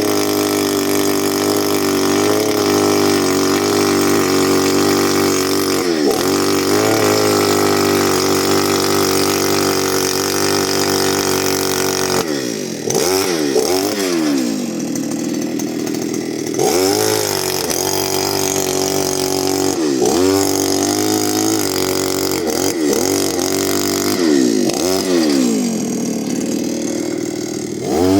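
Earth auger's small petrol engine running at a steady high speed, then from about halfway its speed sags and picks back up several times.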